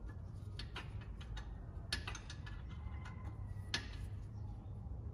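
Scattered light metallic clicks and clinks from hand work on a Jeep Grand Cherokee's front wheel hub as parts are fitted back together, over a faint low hum.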